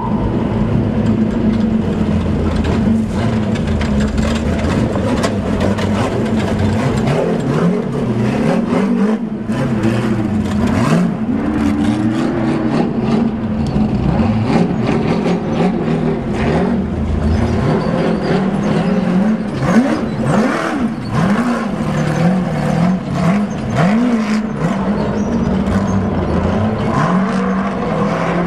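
Off-road race car engines revving hard as the cars climb a rocky desert wash; the engine note rises and falls again and again with the throttle, with sharp cracks throughout.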